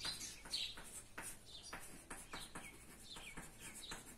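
Chalk tapping and scraping on a blackboard in short strokes as words are written. Small birds chirp faintly in the background in short falling calls.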